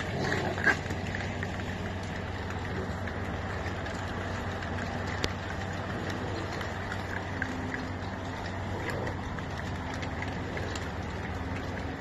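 Raccoons crunching scattered dry feed kernels, a steady crackling patter with a few sharper clicks, over a low steady hum.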